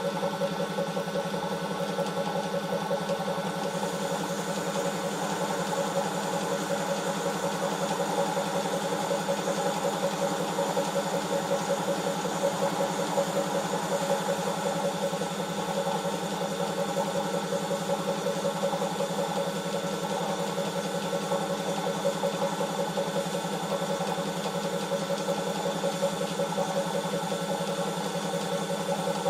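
A motor running steadily at a constant speed with an even hum. A faint high whine joins about four seconds in.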